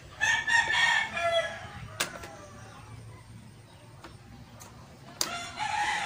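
A rooster crowing twice: one crow right at the start, dropping in pitch at its end, and another starting near the end. A sharp click about two seconds in.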